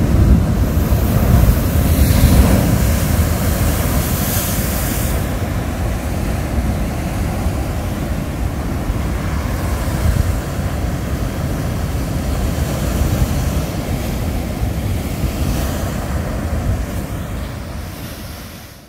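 Ocean surf washing and breaking against a rocky shoreline, a steady rushing wash with a deep rumble and wind on the microphone. Louder, hissing splashes come in the first few seconds, and the sound fades out near the end.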